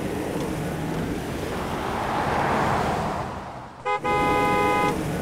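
A steady rushing noise, then about four seconds in a horn sounds once, a steady toot lasting about a second.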